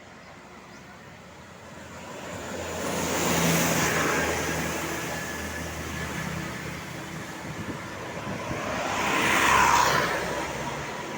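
Tour buses passing by one after another, engine and tyre noise swelling and fading: the first passes about three and a half seconds in, a second, louder one near the end.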